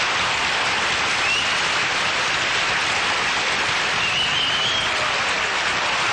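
Audience applauding steadily, with a couple of short high whistles over the clapping.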